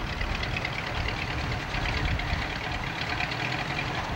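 Hot-rodded 1920s-style sedan's engine idling with a low rumble as the car rolls slowly past at walking pace.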